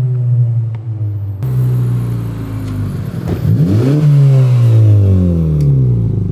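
Honda Civic Type R FK8's turbocharged 2.0-litre four-cylinder engine being revved through a freshly fitted Greddy DDR resonated exhaust. The revs settle, then a quick blip about three and a half seconds in rises sharply and falls slowly back.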